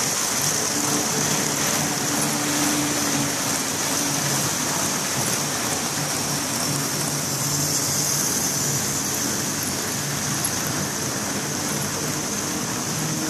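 Model trains running on a layout's track: a steady rolling, whirring noise of wheels on rail, with a low electric-motor hum that comes and goes underneath.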